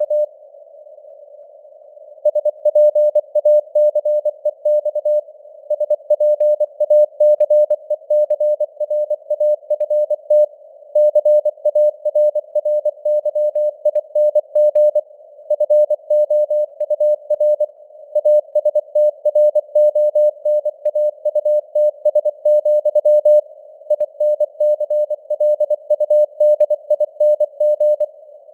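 Morse code sent at 24 words per minute as a single mid-pitched tone keyed on and off in dots and dashes, over a narrow band of simulated radio hiss with the signal strength varying (QSB). It pauses for about two seconds near the start and briefly twice more between words.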